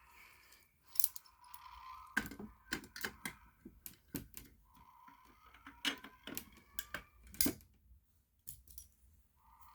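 A string of sharp clicks and knocks from handling a fire alarm board, loudest about a second in and again near the end, over a faint, thin sound from the board's small speaker.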